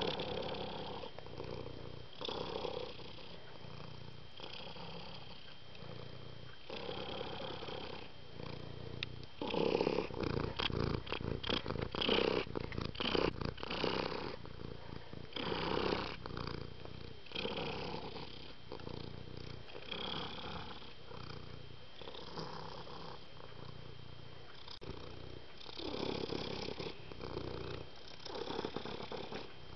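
Domestic cat purring, swelling and easing in a regular rhythm with its breathing, with a busier, louder stretch about ten seconds in.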